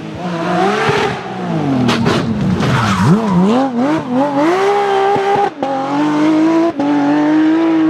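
Porsche 911 GT3's naturally aspirated flat-six engine driven hard. Its pitch swings down and up several times in quick succession, then climbs and holds high, broken twice by a brief sudden dip as it shifts up.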